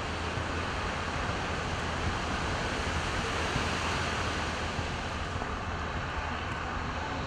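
Steady rushing of sand-and-water slurry pouring from a beach-nourishment dredge discharge pipe, with the low drone of bulldozer diesel engines underneath.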